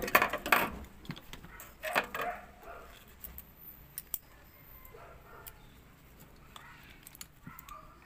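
Metal clinks and clicks from a screwdriver and parts being handled as a microwave oven's high-voltage capacitor is unfastened and lifted out. The clatter is busiest in the first two seconds, with a sharp click about four seconds in, then a few scattered light clicks.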